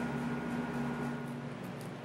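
A steady machine hum. A thin high whine stops about two-thirds of the way through, and the low rumble drops away soon after.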